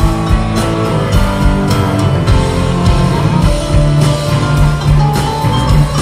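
Rock band playing live: electric guitars, bass guitar and drums in a full-band passage of a country-rock song.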